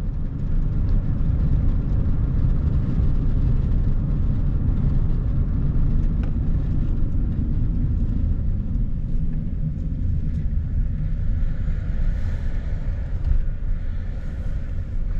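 Vehicle driving along a paved highway: a steady low rumble of road and wind noise, easing slightly near the end as it slows to pull off.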